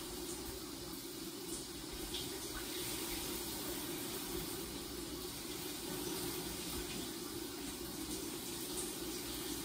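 Shower running, a steady rush of spraying water.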